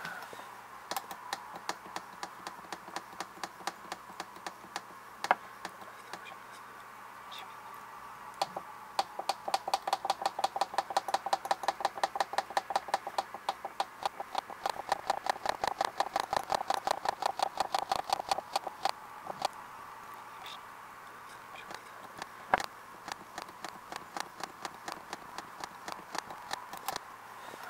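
Soviet Elektronika 6 alarm clock's alarm sounding: a fast train of sharp clicking strikes over a ringing tone. The strikes are sparse at first, then dense and loudest for about ten seconds through the middle, and thin out again near the end.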